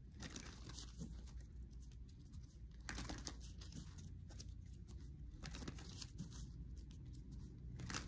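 Faint rustling and a few light clicks of tarot cards being handled, over a low steady room hum.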